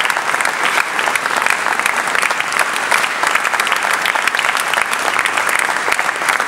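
Large audience applauding, dense steady clapping.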